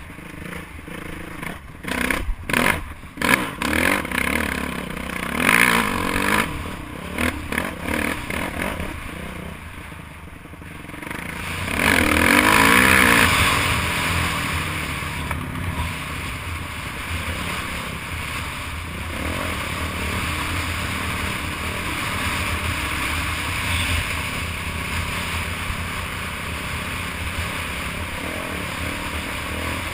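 Dirt bike engine revving on and off over a rough trail, with knocks and clatter from the bike, then a loud rising rev about twelve seconds in, after which it runs steadily at speed.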